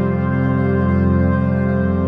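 Background music: slow ambient keyboard music holding one steady chord.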